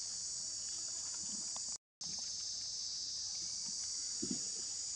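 Steady, high-pitched chorus of insects, unbroken except for a brief moment just before two seconds in when all sound cuts out.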